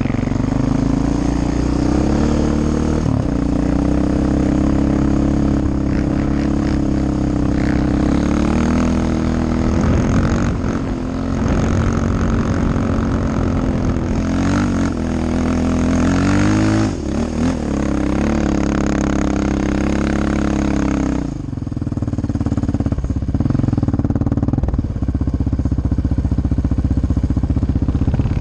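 Sport ATV (quad) engine under throttle while riding over sand dunes, its pitch rising and falling with the throttle. About three-quarters of the way through the throttle comes off and the note drops lower and quieter.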